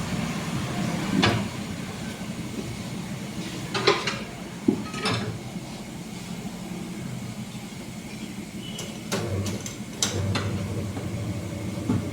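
Scattered metallic clinks and knocks as a tyre and rim are handled on a tyre-changing machine, over a steady low hum.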